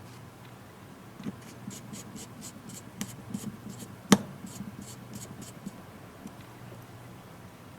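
Light, quick clicks of a small precision screwdriver driving a tiny screw into a tablet's internal frame, about three a second, with one sharper tap about four seconds in.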